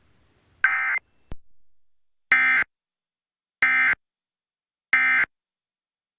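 Emergency Alert System end-of-message data bursts: short, harsh, buzzy digital tones that mark the close of the test. There are four bursts, the last three evenly spaced about a second and a quarter apart.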